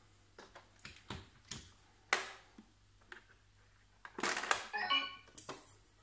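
Plastic clicks and knocks as the carry handle and top lid of a Vorwerk Kobold VR200 robot vacuum are handled and lifted open. A louder rattling clatter comes about four seconds in, with a short pitched sound near five seconds.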